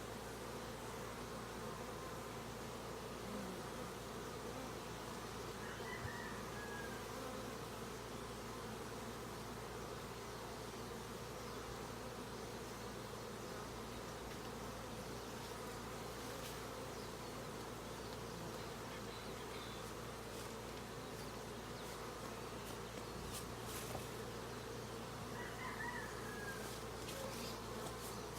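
Honeybees buzzing steadily around an opened hive, a continuous even hum. Two short high chirps are heard, one near the start and one near the end.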